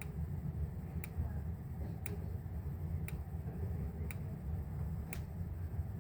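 Fire alarm strobe ticking each time it flashes, about once a second, a short sharp click from its capacitor with every flash, over a steady low hum. The capacitor sounds a little weird every few flashes, which the owner notices as an odd flash.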